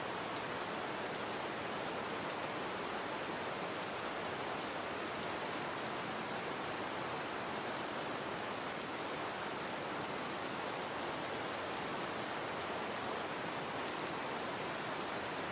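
Gentle rain falling steadily: an even hiss with faint scattered drop ticks.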